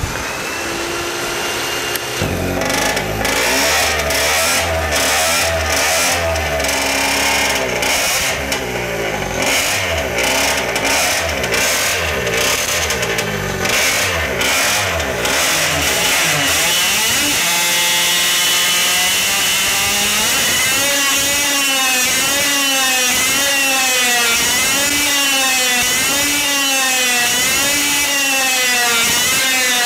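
Tuned single-cylinder two-stroke moped engine started and running on a dyno: it runs unevenly at first, holds a steady speed for a few seconds, then its pitch rises and falls rhythmically, about once a second, from about twenty seconds in.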